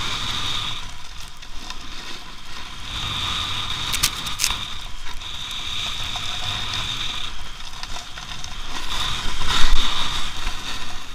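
Edges scraping and hissing over packed snow while riding down a groomed piste, with a few sharp clicks about four seconds in and a louder scrape near the end.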